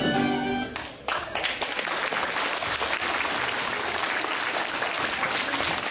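Music stops under a second in, then a hall full of schoolchildren breaks into steady applause.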